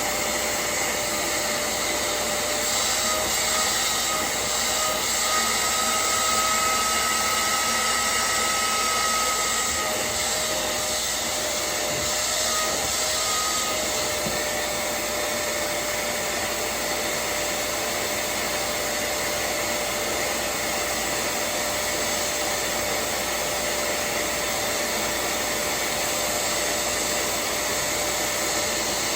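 Hoover CleanSlate portable spot cleaner's suction motor running steadily, with a faint whine; a higher whine comes and goes in the first half.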